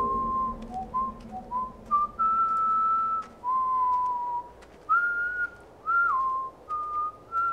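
A man whistling a slow, wandering tune to himself: about a dozen clear notes, some short and some held, a few sliding up or down into pitch.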